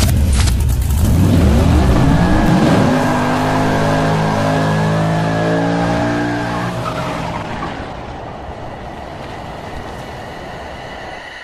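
Car engine sound effect: the engine revs up, rising in pitch over the first few seconds, then holds a steady note and slowly fades out.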